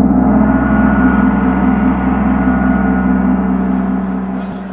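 A single deep ringing tone, struck once just before and held, slowly fading over about five seconds with a slow wavering throb in it.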